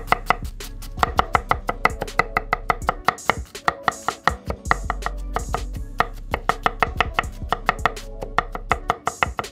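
Large kitchen knife rapidly chopping white onion on a wooden cutting board, a fast, even run of sharp knocks several times a second as the onion is diced fine.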